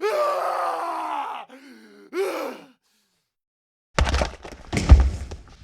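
Fight sound effects: a drawn-out pained groan lasting over a second, then a shorter grunt. After a pause come two heavy punch-to-body thuds a little under a second apart, the second the louder.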